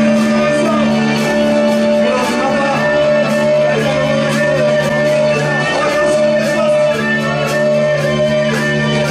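Live rock band playing an instrumental passage: electric guitar over held chords, with a steady drum beat ticking on the cymbals.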